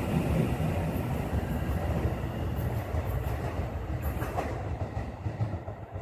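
Shin-Keisei Line electric train pulling out of the station and running away along the track, its rumble and wheel-on-rail noise slowly fading as it recedes.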